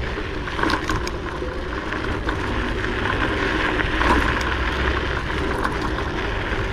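Kugoo M4 Pro electric scooter being ridden over rough ground: a steady rumble with the front spring suspension creaking and clicking now and then, which is normal for its springs.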